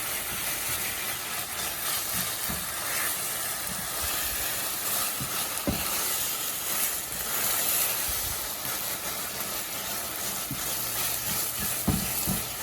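Butternut squash halwa sizzling in ghee in a hot pan as it is roasted and stirred, with a few short knocks of the spatula, the clearest about halfway through and near the end. The ghee has not yet separated, so the halwa is still short of ready.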